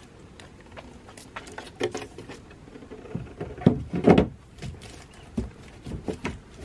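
Irregular knocks, clicks and thumps, with two louder thumps about halfway through.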